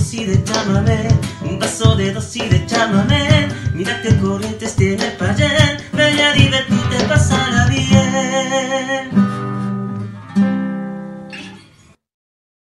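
Nylon-string acoustic guitar strummed with cajón beats in a folk song, ending with held closing chords. A last strummed chord rings out about two-thirds of the way in and fades to silence near the end.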